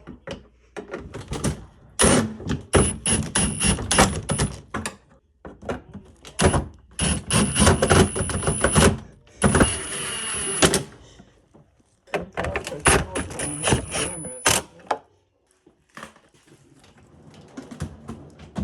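Power drill-driver tightening screws in four runs of a couple of seconds each, a steady high whine with rapid clicking, with short pauses between screws.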